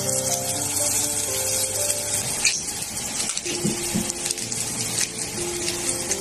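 Food sizzling on an electric griddle plate, a steady hiss, under background music with a slow melody.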